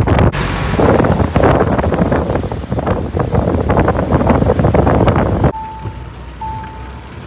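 Wind buffeting the microphone over road noise from a car driving with the window open, loud and rough. Just over five seconds in it cuts to quieter in-cabin road noise with a short beep repeating about once a second.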